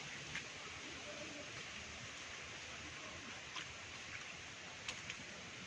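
Steady outdoor rushing noise after heavy rain, with a few short sharp clicks: one near the start, then three between about three and a half and five seconds in.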